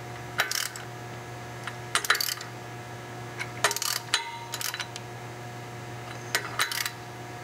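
Ratcheting wrench clicking in about five short bursts as flywheel bolts are run in snug, with metal-on-metal clinks, over a steady low hum.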